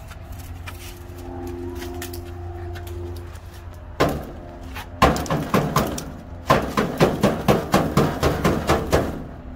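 A rain gutter and downspout knocked and rattled by a long pole poked into it, to check for iguanas hiding inside. One sharp knock about four seconds in, then a run of quick knocks, about three a second.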